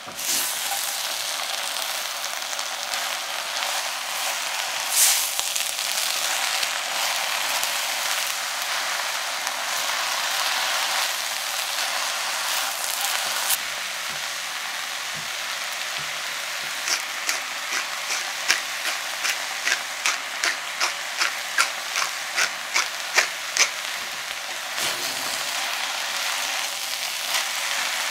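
Tofu, shredded carrot and cavolo nero sizzling in oil in a frying pan as they are stir-fried. In the second half comes a run of quick sharp taps, about two a second, from the spatula striking the pan.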